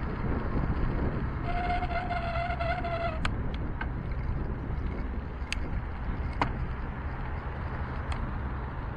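Riding noise of a bicycle: steady wind on the microphone and road rumble from the tyres. About one and a half seconds in, a wavering brake squeal lasts about a second and a half, and a few sharp clicks follow through the rest.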